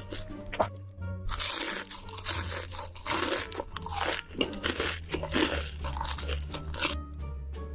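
Loud, close-miked crunching as someone bites and chews crisp food, in quick irregular crunches starting about a second in and stopping shortly before the end, over background music.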